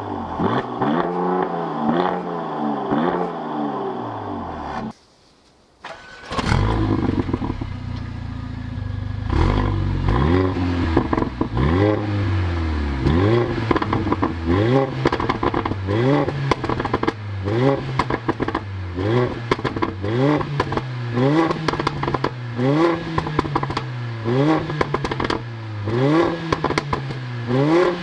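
A Mercedes-AMG C43 estate's twin-turbo V6 exhaust revved in quick blips, then after a short gap a Mercedes-AMG CLA 45 Shooting Brake's turbocharged four-cylinder starting with a sharp bark, idling, and from about nine seconds in being revved again and again, roughly once a second.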